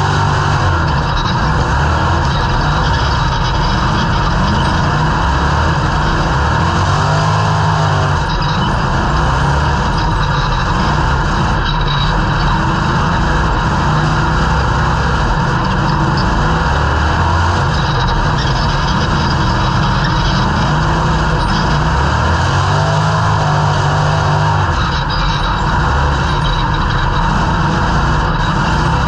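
Dirt-track stock car's engine, loud from inside the stripped cockpit, running hard through a race. The pitch swings up and down, accelerating on the straights and lifting into the turns, about every sixteen seconds.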